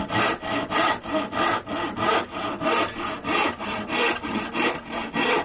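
Handsaw cutting through a thin wooden panel, quick, even back-and-forth strokes at about four a second.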